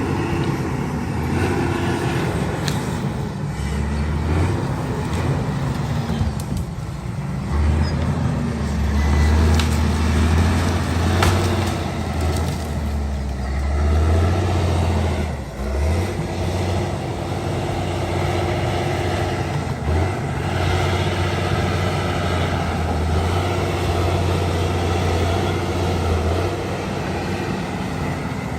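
Diesel engine of heavy earthmoving machinery working under load, its pitch rising and falling again and again as the throttle changes, over a steady low drone.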